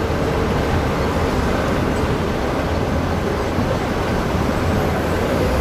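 Hino 500 concrete mixer truck's diesel engine running steadily under way, heard inside the cab, mixed with road and tyre noise as a constant low rumble.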